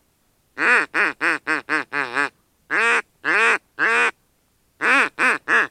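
Duck quacking in three runs: six quick quacks, then three longer ones, then a fresh run of quacks near the end.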